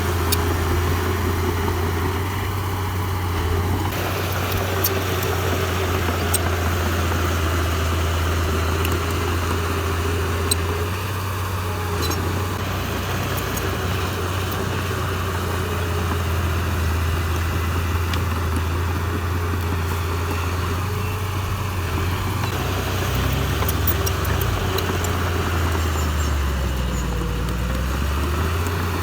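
Heavy-equipment diesel engine running steadily, its pitch dipping and rising again near the end, with a few faint clicks over it.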